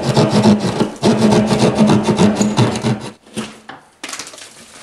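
Hand drywall saw sawing fast through plasterboard ceiling, a rapid rasping stroke rhythm that stops about three seconds in. A few softer scrapes and a sharp snap follow as the cut piece of drywall is worked loose.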